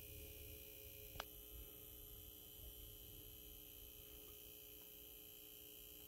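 Faint steady buzz from an Optoma UHD52ALV 4K projector running in 4K mode, with a single short click about a second in. The owner blames the buzz on the projector's 4K actuator and takes it for a defect in a brand-new unit.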